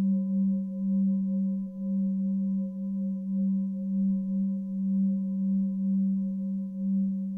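Singing bowl ringing on with one low steady tone and fainter higher overtones, its loudness wavering in slow pulses.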